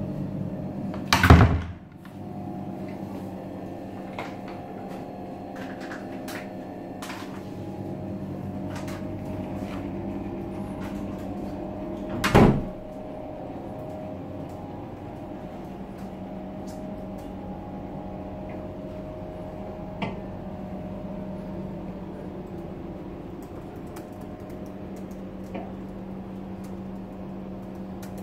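A wooden door swinging shut with a loud thud about a second in, and another sharp thump about twelve seconds in. A steady hum runs under both, with scattered faint ticks.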